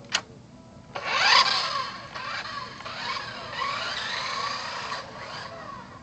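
Remote-control Shelby GT500 Mustang model car's small electric motor whining as it drives off, its pitch sweeping up and down as it speeds up and slows. A sharp click comes just before the whine starts, about a second in.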